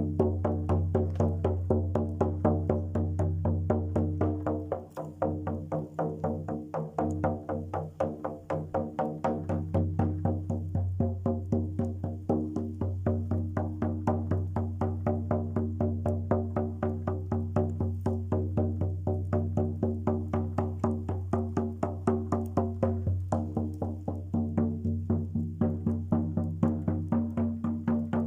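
Music: a quick, steady percussive beat, about three or four strikes a second, over a low sustained drone.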